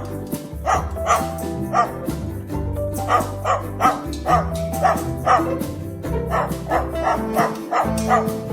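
Background music with a steady beat, with short bark-like yaps falling in time with the rhythm.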